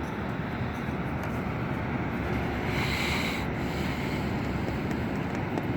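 Steady, low outdoor rumble of the city below a high window, with a brief hiss about three seconds in.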